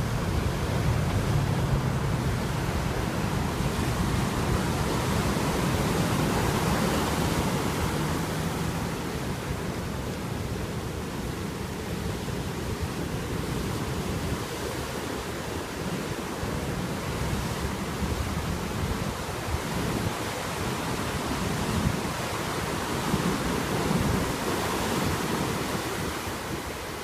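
Heavy shorebreak surf: a steady noise of waves breaking and foaming whitewater washing up the sand, swelling and easing slightly as the waves come in.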